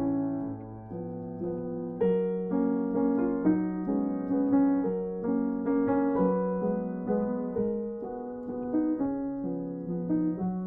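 Background music: a gentle piano piece playing a melody over chords.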